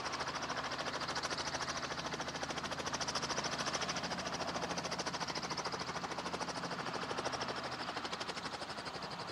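Small two-bladed helicopter running on the ground with its main rotor turning, a rapid, even beat of the blades over a low engine hum that eases near the end.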